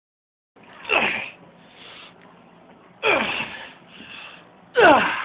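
A man's voice letting out three loud, strained cries about two seconds apart, each dropping steeply in pitch, with softer sounds between them.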